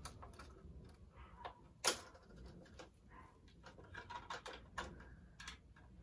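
Light plastic clicks and taps of toy kitchen utensils and play food against a plastic toy pan and stove, with one sharper knock about two seconds in.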